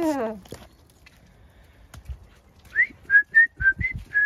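A person whistling a quick run of short, rising notes, about four a second, starting near the end, to call the animals in.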